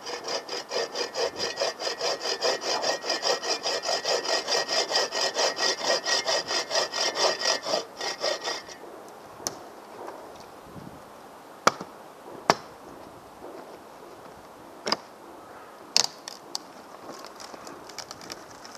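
Folding hand saw cutting through a dead branch in quick, even push-and-pull strokes that stop after about eight and a half seconds. Several short, sharp knocks follow as the cut wood is handled.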